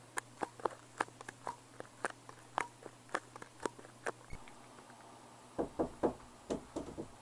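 Irregular light clicks, two or three a second, then from about five and a half seconds in a run of heavier knocks on a door.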